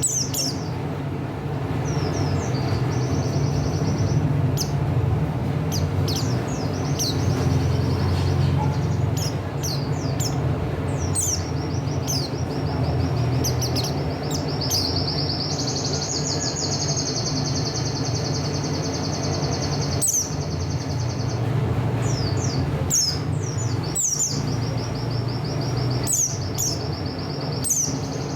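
White-eye ('pleci buxtoni', Zosterops) singing steadily: long rapid high trills lasting several seconds, broken up by quick downward-sweeping chirps. A steady low hum runs underneath.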